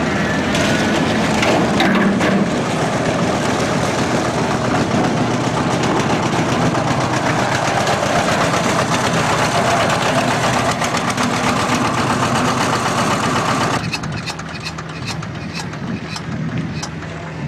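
Two-cylinder air-cooled Petter PH2 diesel of a 1976 Benford dumper running steadily as the dumper drives along. About fourteen seconds in the overall noise drops and the engine carries on at a steady idle, with a few sharp clicks.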